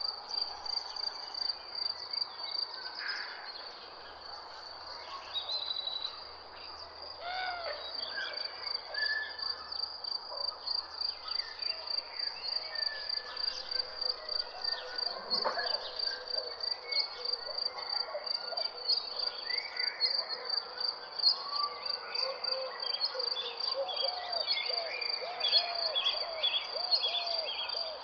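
Garden ambience: an insect trilling steadily in a high, rapidly pulsing tone, with several birds calling and singing over it. Near the end a bird repeats short arched notes about twice a second.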